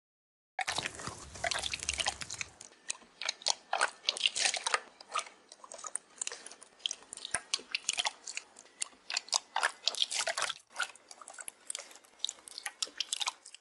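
Slime being worked: a steady run of quick, irregular wet, sticky clicks and pops.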